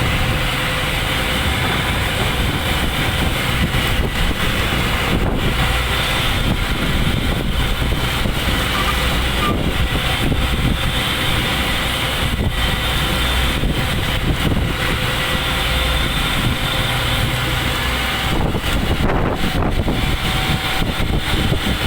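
A ship's engine running with a steady low hum on board, mixed with a constant rushing noise of wind and sea.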